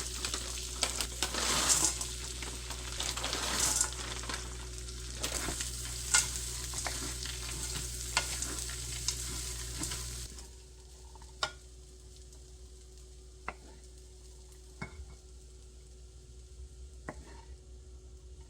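Food sizzling in a frying pan as it is stirred, with utensils clicking against the pan over a steady low hum. The sizzle and the hum stop together about ten seconds in, leaving only a few light clicks and taps.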